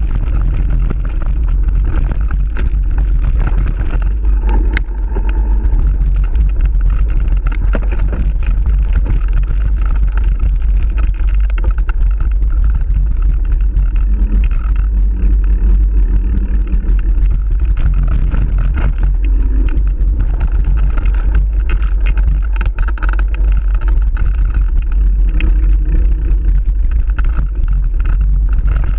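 Wind buffeting a rider-mounted camera's microphone, mixed with the rumble and rattle of a mountain bike running over a dirt singletrack trail: a loud, steady, deep rumble.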